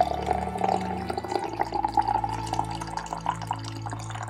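Coffee maker dispensing hot coffee into a ceramic mug: a steady, spattering stream of liquid splashing into the cup.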